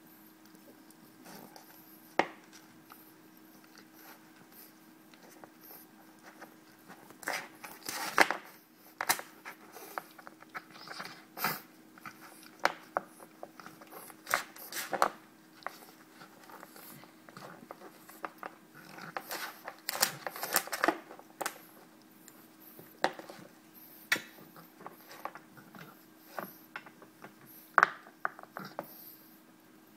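French bulldog puppy gnawing a chew stick: irregular crunching and clicking of teeth on the stick, coming in bunches with pauses between, over a faint steady hum.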